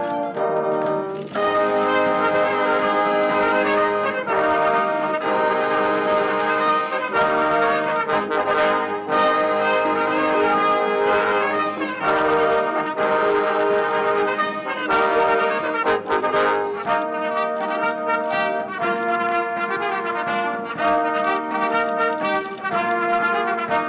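A brass band playing music, several instruments holding notes together and moving from chord to chord.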